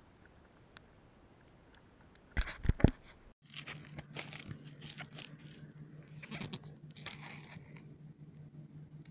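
Crunching and rustling close to the microphone: a few loud crunches about two and a half seconds in, then scattered crackling over a low steady hum.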